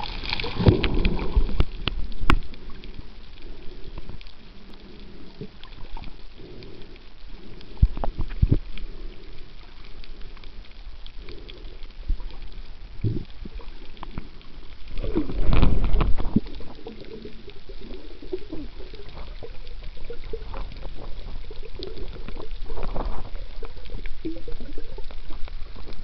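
Muffled underwater noise picked up by a diver's camera, with scattered clicks and knocks and a louder gurgling rush of bubbles about fifteen seconds in.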